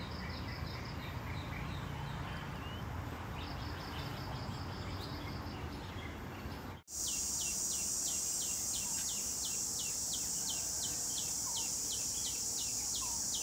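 Insects and birds calling outdoors, with high, rapid chirping. A little past halfway the sound cuts off abruptly. After that comes a steady high insect buzz with a short, falling chirp repeated about three times a second.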